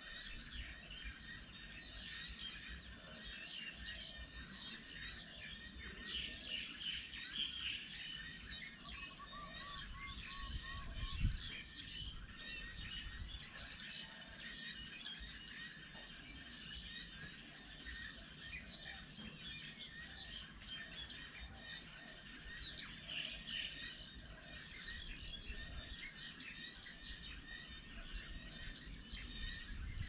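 Several small birds chirping and twittering in many short, overlapping calls, with a brief run of lower repeated notes about nine seconds in. A single thump about eleven seconds in is the loudest sound.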